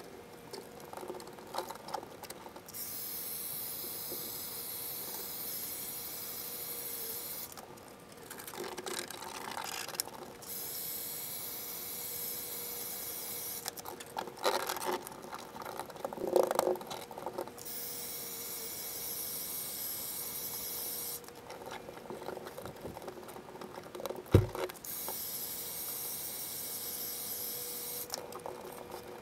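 A heat gun blowing in four stretches of a few seconds each, switched on and off in turn, warming Dynamat sound-deadening mat on a car floor pan. Between the runs the foil-faced mat crinkles and rubs as it is pressed down by hand, and there is one sharp thump about three-quarters of the way through.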